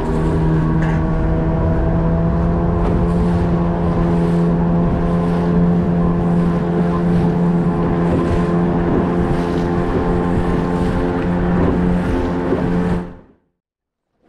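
Outboard motor running at a steady speed, driving a wooden boat through choppy water, with the rush of the wake and wind mixed in. The engine note holds one pitch throughout and cuts off abruptly near the end.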